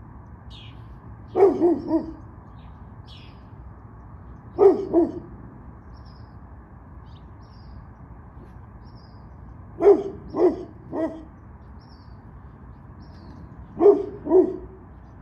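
A dog barking in four quick runs of two or three barks each, a few seconds apart. Faint bird chirps sound behind it.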